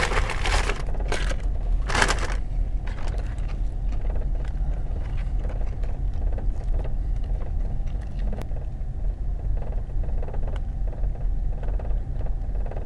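A vehicle's engine idling as a steady low rumble, with paper rustling twice in the first couple of seconds and faint scattered small clicks after.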